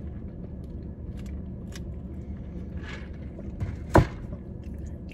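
Quiet eating noises, small clicks and mouth sounds, over a steady low background hum, with one sharp knock about four seconds in.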